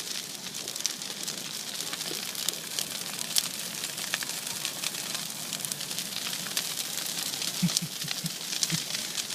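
Bonfire crackling: a steady hiss broken by many sharp snaps and pops.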